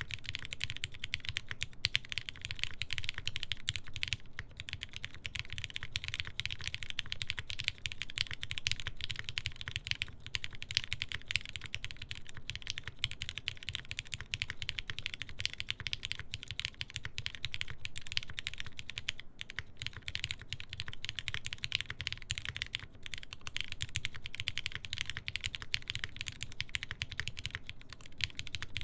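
Continuous fast typing on a custom mechanical keyboard with lubed linear Cherry MX Black switches under an aluminum plate and GMK keycaps: a dense run of keystroke clacks with a few brief pauses.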